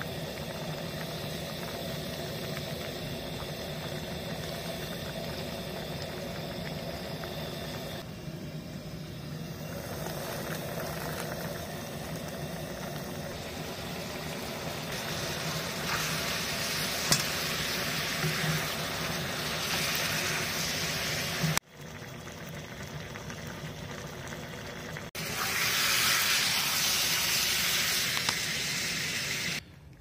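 Sliced apples and bananas sizzling and bubbling in a cast iron pan as they are stirred with a spoon, over a steady low hum. The sizzle grows louder and hissier about halfway through and breaks off abruptly twice near the end.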